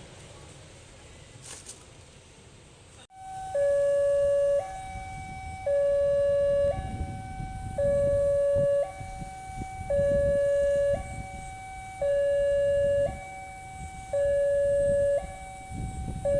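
Railway level-crossing warning siren sounding an electronic two-tone alarm. It alternates between a higher and a louder lower tone, each held about a second, and starts suddenly about three seconds in.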